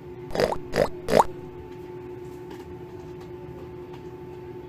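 A woman imitating a pig: three quick oinks, the last one rising in pitch, followed by a steady low hum.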